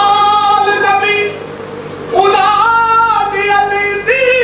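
High solo voice singing a Punjabi Sufi devotional kalam: two long held notes with a softer stretch between them, and a new phrase starting near the end.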